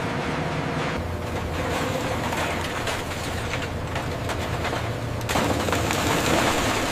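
Scrap-metal shredder running with a steady low drone and a dense rattle of crunching, clattering metal as cars are dropped into it. The crunching grows louder about two-thirds of the way through.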